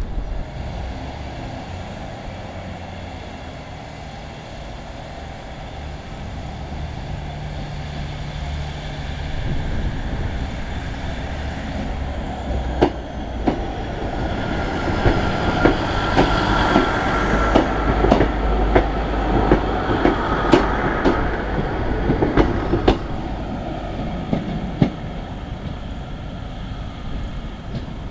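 Class 150 Sprinter diesel multiple unit departing, its underfloor Cummins diesel engines running under power. From about halfway it passes with a run of wheel clicks over rail joints and points and a brief wheel squeal, then draws away.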